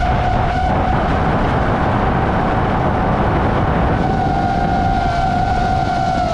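DJI FPV drone's motors and propellers whining at a steady pitch over heavy wind rush, the pitch dipping slightly near the end.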